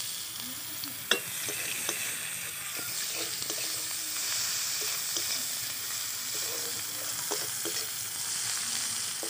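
Chopped onion sizzling in hot mustard oil in a metal karahi, stirred with a metal spatula that clicks and scrapes against the pan. A sharp clink about a second in is the loudest sound.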